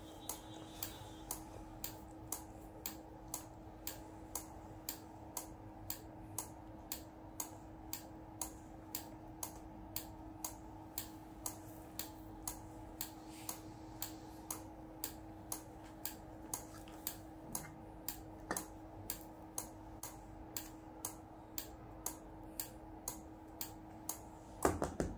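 Steady ticking, about two sharp clicks a second, over a faint steady hum, with a short louder clatter near the end.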